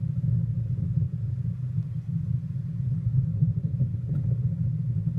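Steady low rumble from a small fishing boat's on-board recording, heard played back through a computer's speakers.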